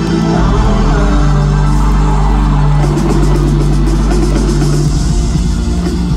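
Live rock band playing through an arena sound system, with held bass notes and drums. A steady cymbal beat comes in about three seconds in, and the long bass note gives way to a pulsing one about five seconds in.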